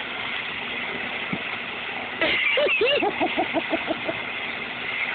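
Garden hose spray nozzle hissing steadily as its jet hits the shallow water, where a Boston terrier snaps at the stream. About two seconds in, a person laughs in a quick run of short bursts.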